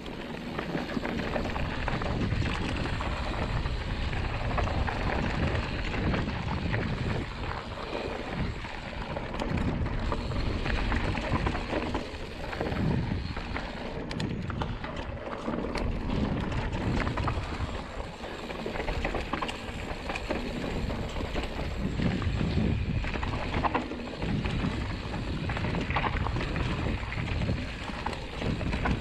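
Mountain bike descending a dirt singletrack at speed: tyres rolling over dirt and loose gravel, the bike rattling and knocking over bumps, with wind rumbling on the microphone.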